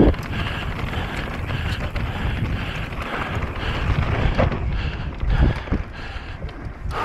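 E-bike descending fast over rough ground: wind rushing over the microphone, with the steady rumble and rattle of the bike and a few sharp knocks, the loudest right at the start.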